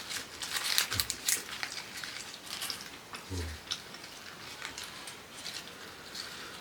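Close-miked eating: wet chewing and lip-smacking clicks, busiest in the first second and a half and then sparser, with two brief low thumps about one and three and a half seconds in.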